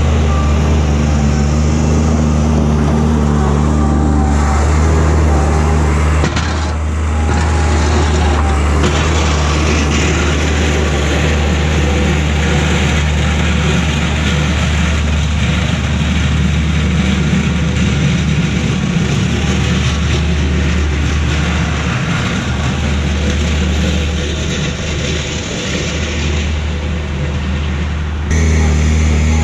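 Bobcat 463 skid steer's diesel engine running as the machine drives with its plow blade. A steady engine note gives way to a rougher, noisier sound about six seconds in, and the steady note returns abruptly near the end.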